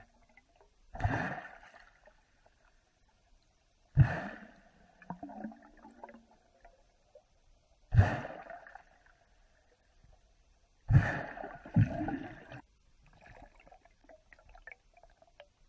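Short, sharp bursts of bubbling as air is pushed out underwater to blow bubble rings, heard through an underwater camera. Five bursts, each fading over about a second, roughly three to four seconds apart, with the last two close together.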